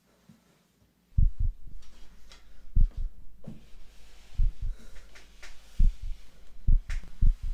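Heartbeat sound effect: deep double thumps, lub-dub, over a low drone, starting about a second in and coming faster near the end.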